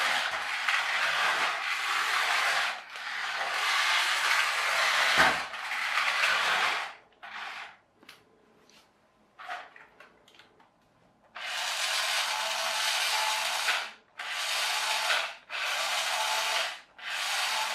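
Small toy car's electric motor and plastic gearbox whirring in repeated runs of a second to a few seconds, stopping and starting as the controls are worked, with a longer pause in the middle.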